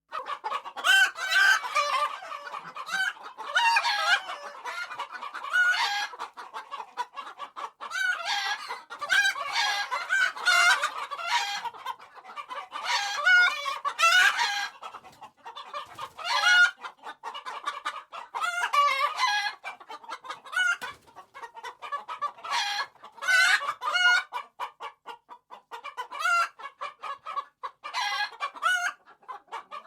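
A flock of hens clucking and cackling in a henhouse, many short calls overlapping in waves that rise and fall.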